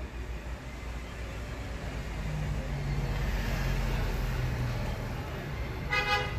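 Steady low rumble of outdoor road traffic, swelling in the middle as something passes with a low, slightly falling hum. Near the end comes a short, pitched toot like a vehicle horn.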